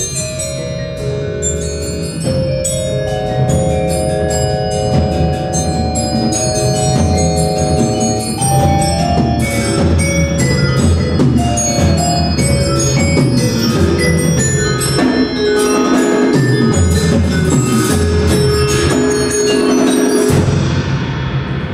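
A percussion quartet playing tuned mallet instruments. Quick runs and repeated struck notes ring over sustained rolled low notes, with accented swells, in a lively, dense passage.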